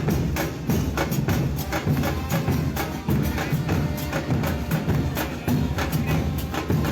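Music with a fast, steady beat of sharp percussion strokes over a full low end.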